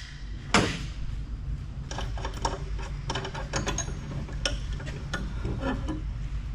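Small metal parts and hardware of a telecom power assembly being handled by gloved hands: a knock about half a second in, then a run of light clicks and taps, several a second, over a steady low hum.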